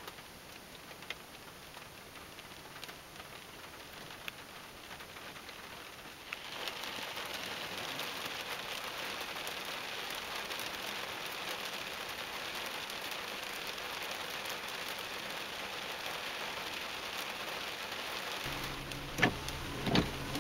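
Rain pattering on a car's roof and windshield, heard from inside the car, with what sounds like small hail mixed in; it gets heavier about six seconds in and then holds steady. Near the end a low hum starts and the windshield wipers knock across the glass a couple of times.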